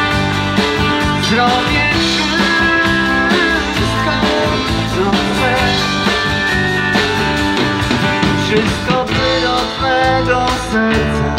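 Live country band playing an instrumental passage between sung lines, guitars to the fore.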